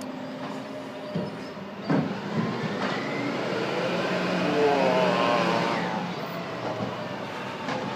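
Volvo refuse truck's diesel engine running as it drives past, swelling to its loudest about five seconds in and then easing off. Two short thumps sound about one and two seconds in.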